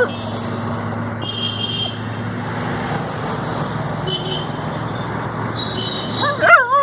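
A steady low hum with background noise, then, about six and a half seconds in, a dog gives a short, wavering whining howl.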